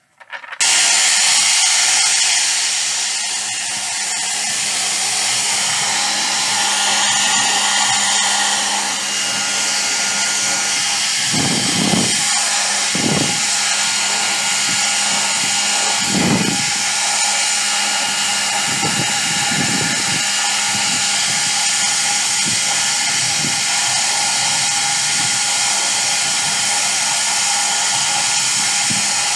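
Hand-held hair dryer blowing steadily on a doll's hair, starting abruptly right at the start, with a few brief low bumps in the middle.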